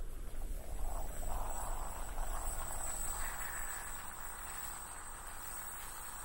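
Gotway (Begode) RS HS electric unicycle rolling over cobblestones: a low rumble of the tyre on the stones with a steady high-pitched whine from the hub motor.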